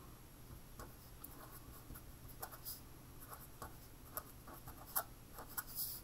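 Pen writing on paper: a run of short, faint scratching strokes, with one sharper tick about five seconds in.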